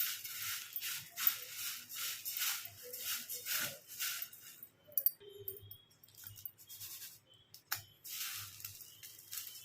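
Sun-dried leftover rice frying in hot oil, sizzling and crackling in surges for about four seconds. The sizzle comes back briefly near the end, with a sharp click shortly before it.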